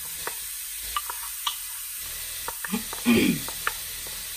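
Chopped onions and peppers sizzling steadily in a preheated skillet just after going in, with scattered crackles and a brief louder noise about three seconds in.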